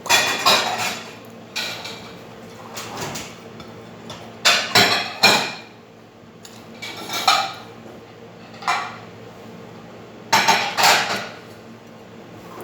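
Cutlery and dishes clinking and clattering against plates in a string of short, sharp knocks, some in quick pairs or threes, with gaps between.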